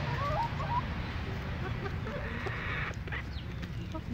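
A small flock of young chickens feeding: short, wavering chirps and clucks in the first second, then a few sharp taps near the end as beaks peck at chopped greens on a concrete stone, over a steady low rumble.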